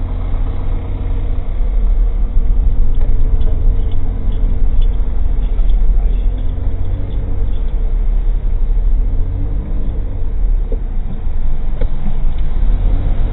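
Old kei car's engine and road rumble heard from inside the cabin: a steady, loud low rumble with the engine note drifting slowly up and down. A few faint rattling ticks come in the first half.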